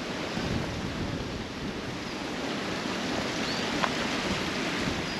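Wind rushing steadily through woodland and buffeting the microphone, with a few faint, short high chirps and an odd light click.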